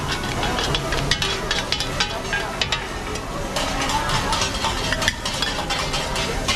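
Street-food stall cooking: metal utensils clinking and scraping while food sizzles, with many quick sharp clicks over a steady hiss and faint crowd chatter behind.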